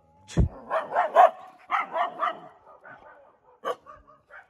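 Free-roaming street dogs barking warning barks in two quick runs of sharp barks, the kind of barking that stops short of attack. A loud thump comes just before the barking, and a single sharp click follows near the end.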